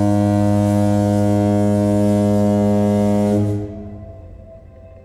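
A deep, steady horn-like tone with many overtones, held for about three and a half seconds and then fading into soft, sustained ambient music.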